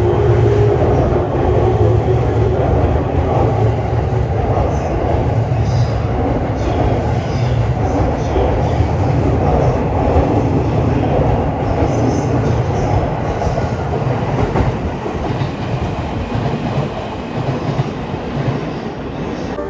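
Passenger train running alongside the platform, a steady loud rumble with wheels clicking over rail joints. The sound eases off over the last few seconds.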